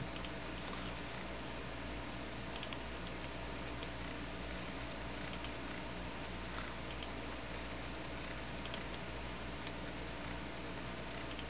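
Clicks of a computer mouse's buttons, about a dozen, several in quick pairs like double-clicks, over a steady low hum.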